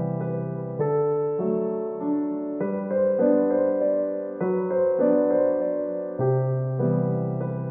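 Keyboard music with a piano sound: a slow run of held chords over a bass line, the chords changing about once a second.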